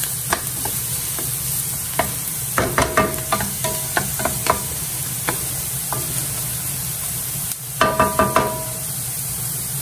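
Diced carrots and onion sizzling in a nonstick frying pan as a wooden spatula stirs them. Quick clusters of knocks and scrapes of the spatula on the pan come about a third of the way in and again near the end.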